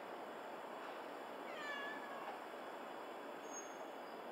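A cat meowing once, about a second and a half in: a short call that falls in pitch, over a faint steady hiss.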